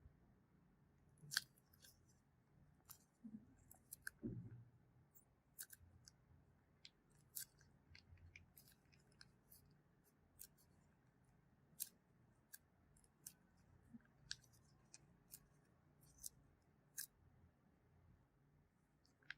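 Slime being handled, giving faint, irregular sharp clicks and pops, roughly one or two a second, over a low hiss.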